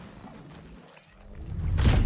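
Logo-reveal sound effect: a faint airy texture, then from about a second and a half in a swelling whoosh that lands on a deep booming hit near the end.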